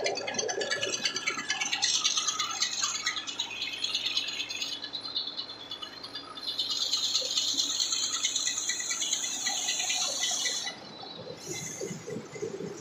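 Small tractor-driven rice mill running, with grain rattling and hissing through the huller and polisher. The sound changes level a few times and drops abruptly about ten and a half seconds in.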